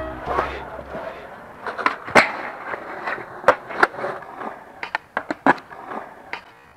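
Skateboard wheels rolling on smooth concrete, with sharp clacks of the board striking the ground, loudest about two seconds in and in a quick run of several around the middle to later part.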